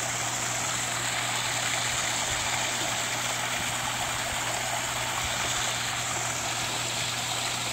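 Pond waterfall splashing steadily into the pond, with a faint steady low hum underneath.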